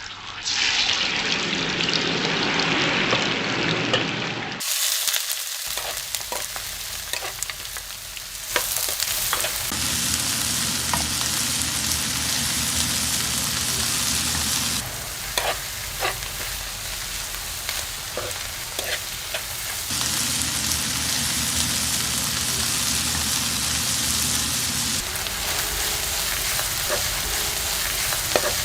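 Food sizzling in a frying pan, with scattered light clicks of a utensil stirring. The hiss changes character abruptly every few seconds, like spliced sound-effect clips.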